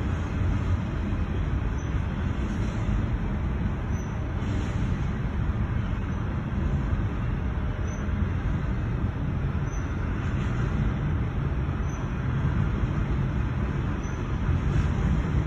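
CSX freight train rolling past a grade crossing, a steady low rumble heard from inside a stopped car's cabin.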